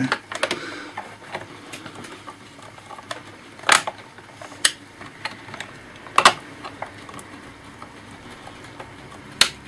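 A few separate sharp clicks and taps of a small screwdriver and plastic laptop parts being worked on as a small screw is taken out, spaced a second or more apart.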